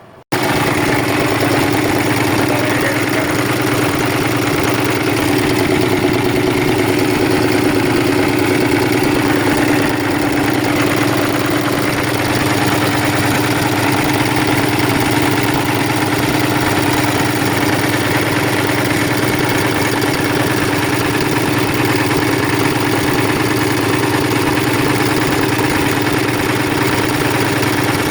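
Engine running at a steady idle after an overhaul.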